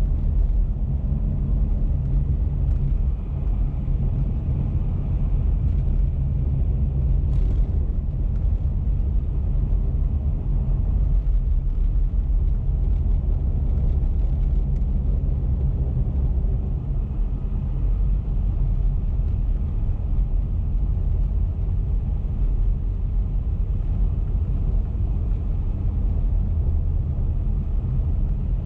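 Car driving at steady highway speed: a continuous low rumble of road and engine noise that holds even throughout.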